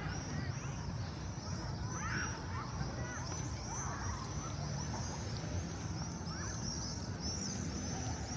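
A crowd of small birds chirping continuously in high, quick repeated calls, over a low murmur of voices and street noise.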